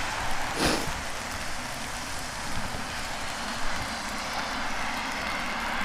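Steady hiss of rain with the noise of vehicle traffic on wet roads, and one short sharp sound about half a second in.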